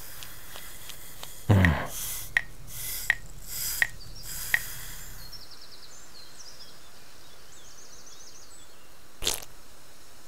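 Cartoon sound effects: a loud falling glide, then four short squeaky clicks about 0.7 s apart, faint bird chirps, and a brief puff near the end.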